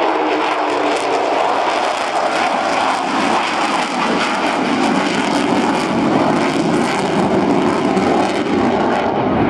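Avro Vulcan bomber's four Rolls-Royce Olympus turbojets in a loud, crackling jet roar during a low display pass: the Vulcan howl. A lower tone slides down over the first couple of seconds.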